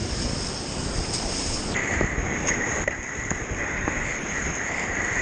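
Steady rush of wind and sea water heard on a kayak-mounted camera's microphone, with a faint steady whine added after an abrupt change about two seconds in.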